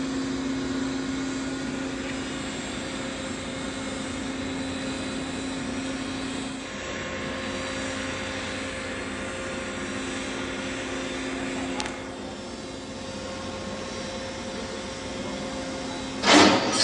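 Steady machinery drone with a low hum, from the ship's deck crane holding an excavator in lifting slings. Near the end a sudden loud burst breaks in.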